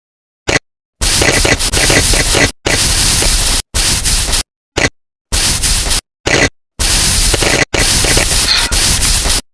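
Close-miked crackling, scraping noise from handling slime-making materials, in a string of short bursts broken by complete silence.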